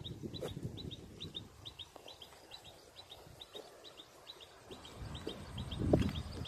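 A small bird repeating short, high chirps in quick pairs and threes, about two groups a second. Under it runs a low rumble of wind on the microphone, which swells near the end.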